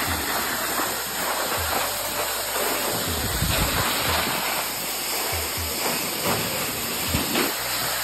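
Waterfall plunging down a rock face onto boulders and a pool: a loud, steady rush of falling water, with short low thumps every second or two.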